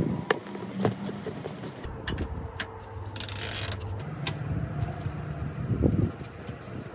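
Hand ratchet clicking in short runs as a socket turns bolts under the car, with scattered metallic taps. There is a brief hiss about three seconds in and a low hum in the second half.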